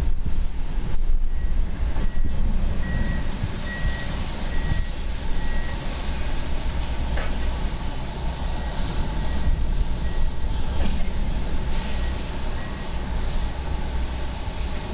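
Komatsu hydraulic excavator's diesel engine running with a steady low rumble as it works demolition debris. A warning alarm beeps at one pitch, roughly once every half to one second, loudest in the first six seconds and fainter later, and a single sharp knock sounds about seven seconds in.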